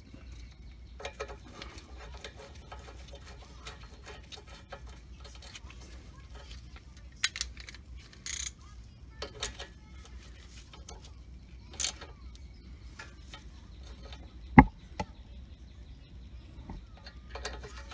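Hand ratchet clicking in short runs as a 12 mm bolt is run in and snugged, with light clinks of metal tools and parts. About 14.5 s in, a single sharp metal clank is the loudest sound.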